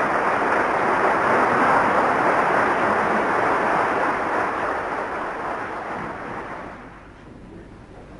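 Audience applause, a steady clatter of clapping that dies away about five to seven seconds in.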